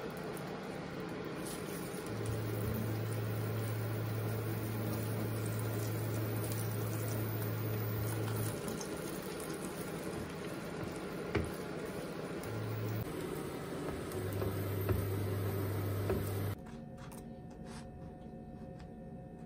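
Egg frying in a pan on an induction hob: a steady sizzle, with the hob's low hum cutting in and out and a few light taps of a spatula in the pan around the middle. The sizzle stops abruptly near the end.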